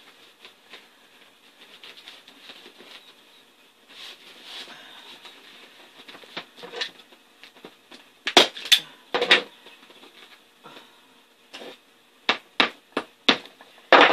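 Hand-squeeze staple gun firing staples through vinyl upholstery into a four-wheeler seat's plastic base: about nine sharp snaps in the second half, three in quick succession and then a looser run. Before them come faint rustles and clicks of the vinyl being folded and handled.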